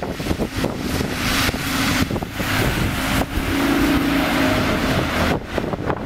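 A London bus running close by, a steady engine hum that swells a little past the middle, with strong wind buffeting the microphone.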